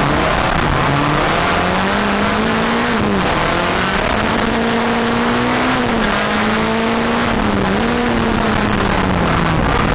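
Skoda Fabia rallycross car's engine at full racing effort, heard from inside the cabin. The revs climb and drop several times, falling sharply about three seconds in and twice more later, over a steady hiss.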